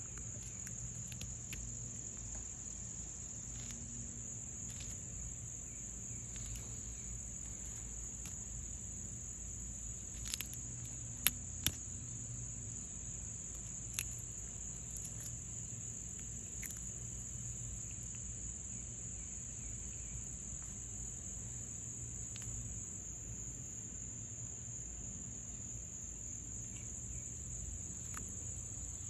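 Steady high-pitched insect trilling, cricket-like, running unbroken. About ten to fourteen seconds in, a few sharp clicks stand out, two of them close together.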